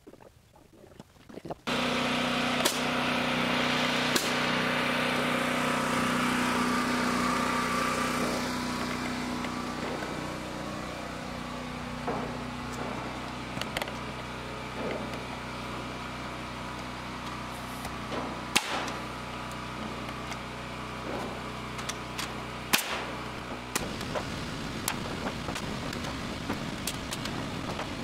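An engine running steadily, starting abruptly about two seconds in, with scattered sharp knocks over it.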